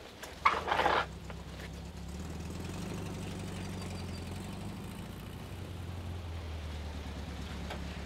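Vintage car's engine idling with a steady low hum. A brief loud noise comes about half a second in.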